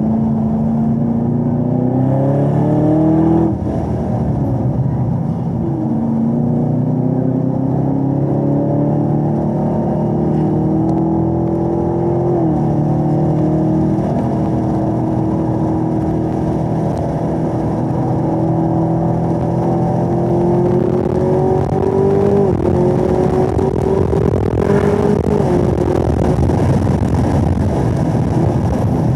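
2017 Camaro ZL1's supercharged V8, heard from inside the cabin under hard acceleration. The engine note climbs steadily in pitch and drops sharply at each of three upshifts of the ten-speed automatic.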